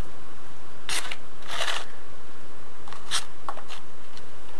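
Steel trowel scraping and spreading wet cement mortar over a concrete floor: four short scraping strokes, the longest and loudest about a second and a half in.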